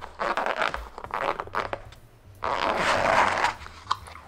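Clear plastic lid being pried and pulled off a disposable takeout food container, the thin plastic crackling in short bursts, then a longer, louder crackle about two and a half seconds in and a sharp snap just before the end as it comes free.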